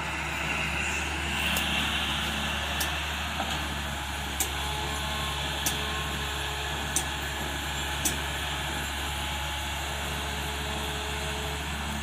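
Hitachi tracked excavator's diesel engine running steadily as the machine digs and swings. Half a dozen short sharp clicks, about a second apart, come through in the middle.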